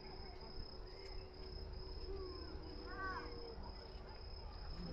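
Crickets trilling in one steady, unbroken high tone.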